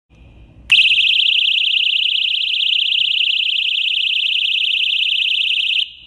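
Keychain personal safety alarm (self-defense siren) going off: a loud, high-pitched shriek that warbles rapidly. It starts suddenly under a second in and cuts off shortly before the end.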